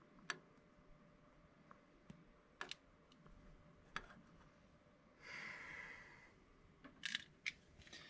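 Mostly near silence: a few faint clicks and taps from handling a lit long-neck utility lighter over a glass candle jar, a short soft hiss about five seconds in, and a quick cluster of sharper clicks near the end as the lighter is put down.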